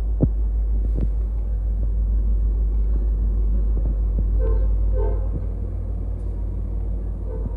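Deep, steady vehicle rumble that eases off about five and a half seconds in, with two short pitched chirps near the middle.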